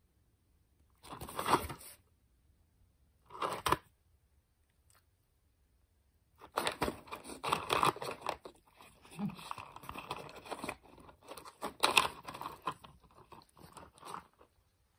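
Pomeranian puppy chewing and gnawing on its toys inside a cardboard box, making crunching, scraping and tearing sounds against the cardboard. Two short bursts come early, about a second and a half and three and a half seconds in, then steady chewing sounds from about six seconds in.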